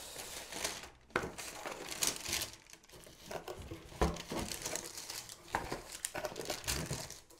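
Packaging rustling and crinkling as a hand rummages through a cardboard box of grocery items, with a few light knocks about one, four and five and a half seconds in.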